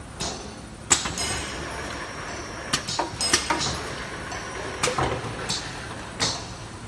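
Automatic auger powder filling line running, a steady machine noise broken by irregular sharp clicks and knocks as plastic bottles move along the stainless conveyor. The loudest knock comes about a second in, and several follow in quick succession around three seconds in.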